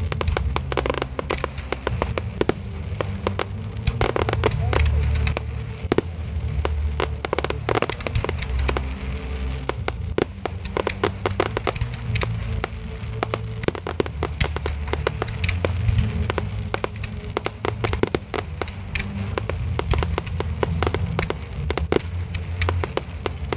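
Fireworks display going off in quick succession: aerial shells bursting and crackling, with many sharp bangs a second, over loud music with a heavy bass.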